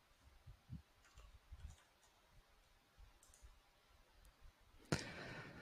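Near silence: faint room tone with a few soft clicks and low thumps, then a sudden louder noise near the end.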